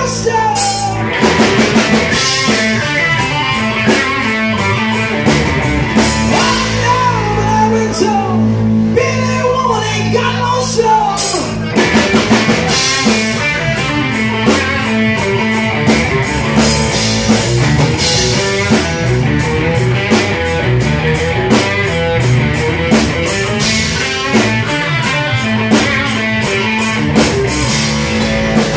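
Rock band playing live: distorted electric guitar over bass and a drum kit with a steady beat.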